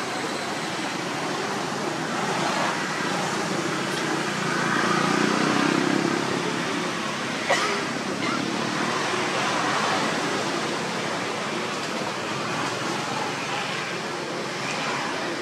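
Steady rushing outdoor background noise that swells and fades, with a single sharp click about seven and a half seconds in.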